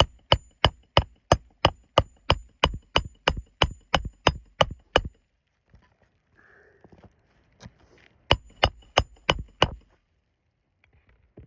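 Hand hammer driving roofing nails into an asphalt shingle: about fifteen sharp, ringing blows at roughly three a second, a pause, then four more blows near the end.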